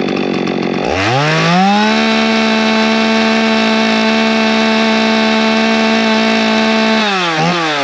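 Poulan Pro Super 380 two-stroke chainsaw revved from idle to wide-open throttle about a second in. It holds a steady high pitch for about five seconds, then is let off with one short blip and drops back toward idle. It is being warmed up, with the high-speed carburettor mixture not yet tuned.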